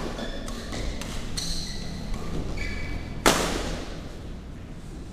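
Badminton rackets hitting a shuttlecock during a doubles rally, with short squeaks of court shoes on the floor; one hard hit about three seconds in is the loudest sound and echoes through the hall.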